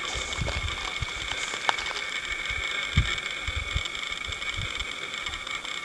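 Wind buffeting the microphone in irregular low gusts, over a steady high-pitched drone.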